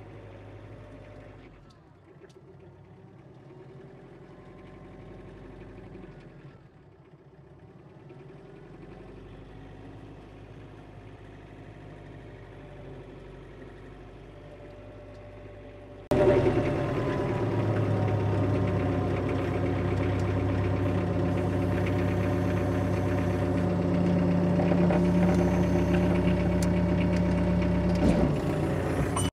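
Diesel engine of a John Deere 4 Series compact cab tractor running steadily as the tractor is driven on its hydrostatic transmission. About halfway through it becomes much louder and fuller, and holds that level to the end.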